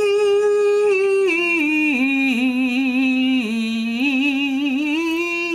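A solo voice singing a wordless operatic run with vibrato, unaccompanied: a long held note for about a second, then stepping down through lower wavering notes and rising again near the end.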